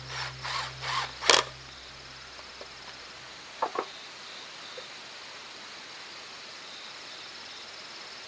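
Wood handled on a log sawhorse: a few short knocks and scrapes of boards in the first second and a half, then two sharp clicks a little past the middle. Insects chirp steadily throughout, and a quiet music bed fades out in the first few seconds.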